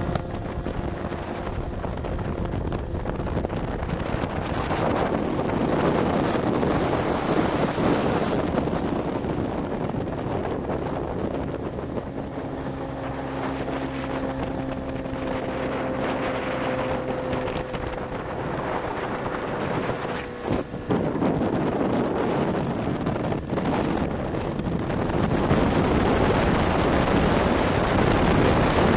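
Motorboats running at planing speed, heard from aboard one of them: a steady engine drone under heavy wind buffeting on the microphone and rushing water. The engine tones fade into the wind and water noise about twenty seconds in.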